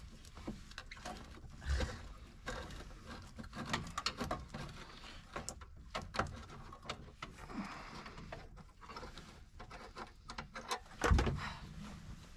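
Irregular small clicks, scrapes and rattles of metal and plastic dashboard parts in a 1970s Datsun 521 pickup being worked loose by hand, with a heavier knock about eleven seconds in.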